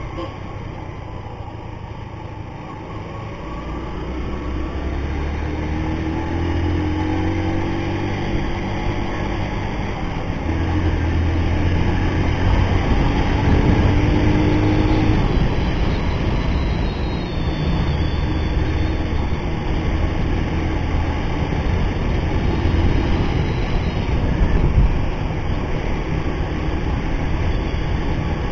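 Motorcycle engine running under way, with wind noise on the helmet-mounted microphone. The engine pitch rises twice in the first half as the bike speeds up, and the sound gets louder, then holds steady.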